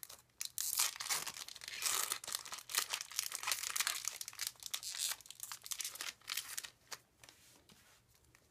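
Foil Pokémon Steam Siege booster pack wrapper crinkling and tearing as it is ripped open by hand. The crackling stops about seven seconds in.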